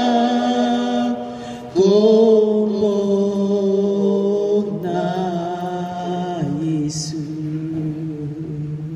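A slow hymn sung in long held notes. A new phrase starts about two seconds in, and the singing slowly fades near the end.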